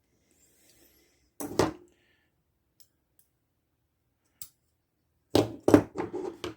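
Small tools and parts being handled on a workbench: a couple of sharp knocks about a second and a half in, a single faint tick later, then a quick run of several clicks and knocks near the end.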